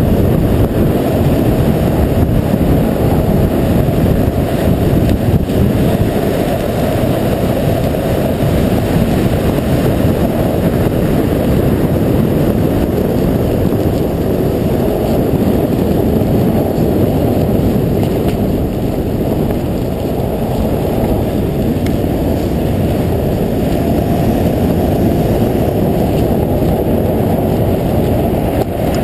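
BMW E46 330d Touring driving over snow, heard from a camera mounted on the outside of the car: a steady, loud low rumble of wind and tyre noise with no distinct engine note standing out.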